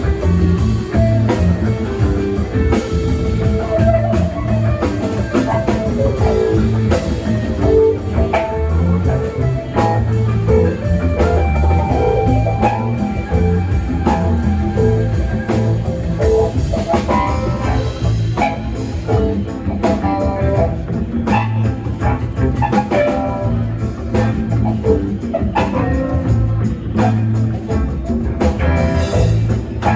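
Live band playing an instrumental passage: guitar over a drum kit, in a rock/blues jam style.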